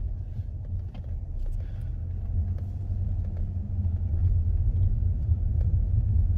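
Car driving on a road: a steady low rumble of engine and road noise, growing a little louder in the second half.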